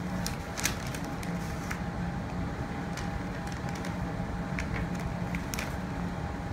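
Pattern paper being handled and marked with a pencil along a ruler: scattered light clicks and rustles over a steady room hum.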